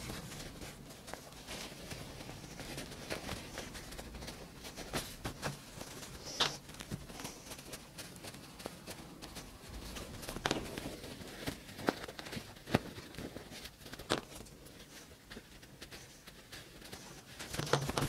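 Cotton fabric being handled and rustled, with scattered light clicks and taps, as a sewn cloth pouch is turned right side out and smoothed flat on a cutting mat.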